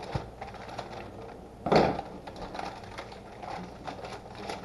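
Small clicks and taps of things being handled on a kitchen counter, with one louder short knock a little under two seconds in.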